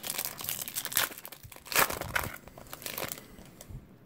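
Foil wrapper of a 2017 Topps Series 2 baseball card pack crinkling and tearing as it is opened by hand, loudest about two seconds in and dying down after about three seconds.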